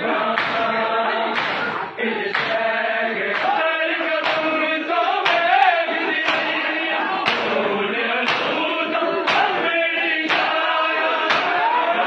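Men's voices chanting a noha together, with the whole crowd striking their bare chests in matam about once a second, each blow a sharp slap in time with the chant.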